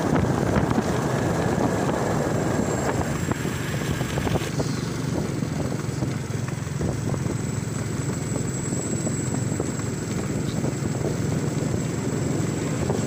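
Small motorcycle engine running steadily at cruising speed, with wind and road noise rushing past; the higher hiss eases about three seconds in.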